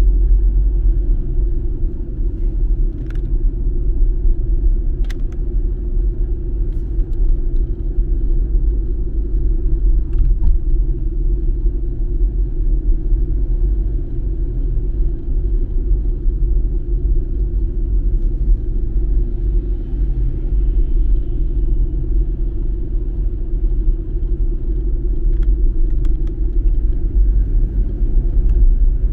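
Steady low rumble of a car driving at city speed, heard from inside the cabin: road and engine noise, with a few faint clicks.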